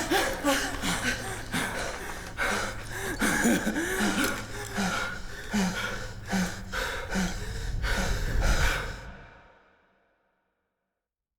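Gasping and breathing from a person, over many clicks and knocks and a steady low hum, all fading out to silence about nine seconds in.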